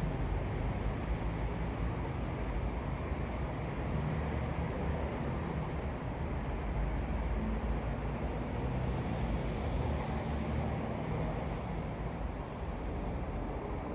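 Jet noise from a Boeing 787-9 airliner's GEnx-1B turbofan engines passing overhead: a steady, deep rush of sound whose higher hiss thins out over the last few seconds.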